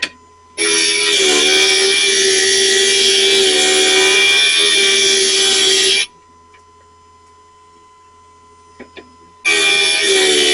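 Stained-glass grinder's bit grinding the edge of a glass piece, a loud, gritty whine with a steady pitch. It stops for about three seconds, leaving only the faint hum of the running grinder and a couple of small clicks of the glass being handled, then grinding starts again near the end.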